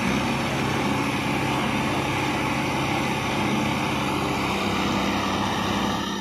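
Heavy diesel engine of a hydra crane working a lift, running hard at steady high revs, easing off near the end.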